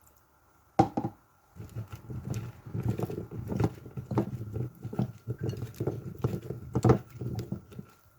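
Cauliflower florets being mixed in a bowl with a thick maida and cornflour batter to coat them: irregular wet patter and clatter, with a sharp knock about a second in and another near the end.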